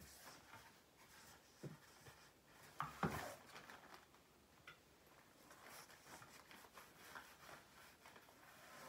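Soft rustling and handling of a polyester graduation gown and its cap on a hanger, with a louder bump and rustle about three seconds in.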